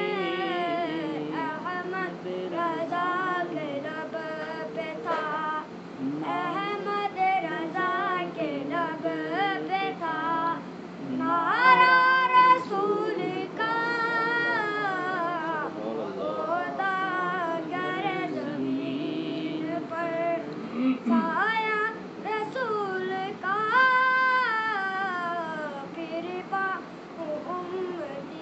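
A boy's voice singing a naat unaccompanied, in long ornamented phrases. It rises to louder high held notes about twelve seconds in and again near twenty-four seconds.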